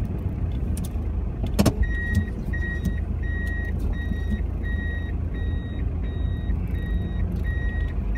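Car's reverse warning beeper sounding in short, evenly spaced high beeps, about two a second, beginning about two seconds in just after a click, over the steady low rumble of the engine idling.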